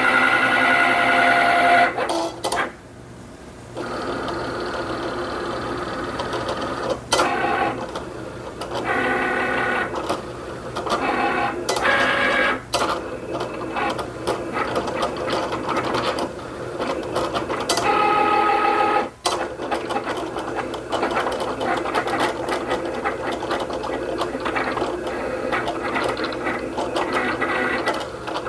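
Cricut Explorer Air 2 cutting machine running a cut: its stepper motors whir in steady tones that jump in pitch from stretch to stretch as the blade carriage moves side to side and the mat is rolled back and forth, kiss-cutting a printed sticker sheet. It pauses briefly a few seconds in and again a little past the middle.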